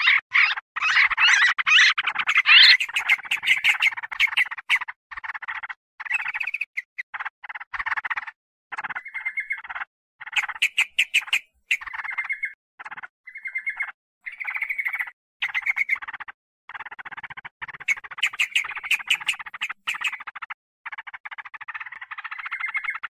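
Trucukan bulbul lure song: busy, rapid chattering and bubbling calls, dense for the first few seconds, then coming in choppy bursts with short gaps before thickening again near the end.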